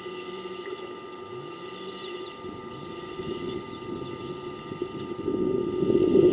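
Small birds chirping at a waterhole, with a few short low calls that rise and then hold. Near the end a low, rough sound swells in and grows loud.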